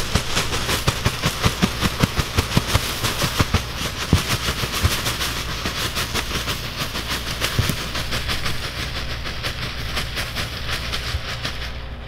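Sawdust being poured and shaken out of plastic bags into a dirt trench: a fast, rattling patter with rustling of the bag, strongest in the first few seconds.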